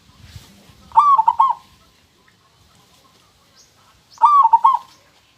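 Zebra dove (perkutut) cooing: two short phrases of quick, clear, ringing notes, one about a second in and another about three seconds later.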